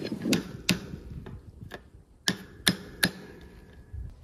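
Fencing pliers working fence staples out of a wooden fence post: a handful of sharp, uneven metal clicks and taps, the loudest three in the second half, one leaving a faint ring.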